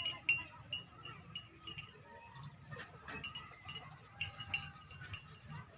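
Small bells jingling in short, irregular clinks.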